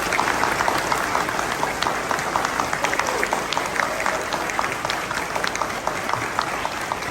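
Audience applauding: many hands clapping steadily, easing a little near the end.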